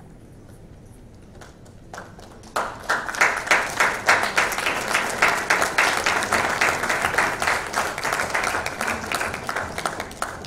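Audience applauding. A few scattered claps come first, then steady clapping from about two and a half seconds in that thins out near the end.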